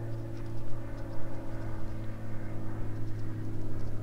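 Steady low mechanical hum, unchanging in pitch, with a few faint ticks over it.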